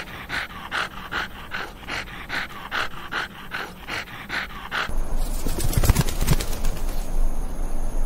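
A pug panting rapidly through its open mouth, an even rhythm of about two and a half breaths a second. About five seconds in, the panting gives way to a low rumble with scattered sharp clicks.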